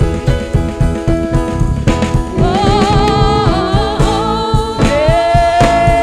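Gospel worship music: a drum kit and sustained held chords play, and from about two seconds in a voice sings a long wavering melody over them.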